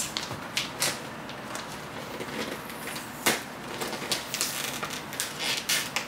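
Crinkling and crackling of glossy gift wrapping as it is worked loose and peeled open by hand at the top of a box, with a sharper click a little over three seconds in.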